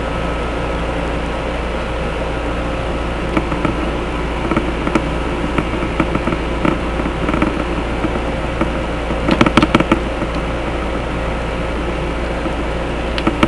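Steady low hum with scattered clicks and knocks from the sewer inspection camera's push cable being handled, including a quick run of rattling knocks about nine seconds in.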